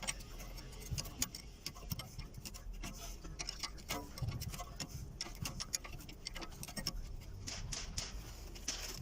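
Socket ratchet clicking in irregular runs as the brake caliper's guide-pin bolts are loosened, with small metallic ticks from the tool and bolts.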